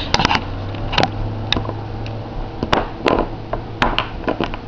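Plastic action figure being handled and repositioned: scattered light clicks and knocks of its plastic parts and detachable legs, at irregular intervals, over a low steady hum.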